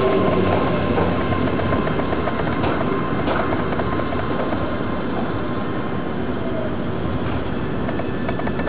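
JR Kyushu 303 series electric train rolling slowly alongside the platform and drawing to a stop, a steady rumble of wheels and running gear. A thin whine from its traction motors fades out about halfway through.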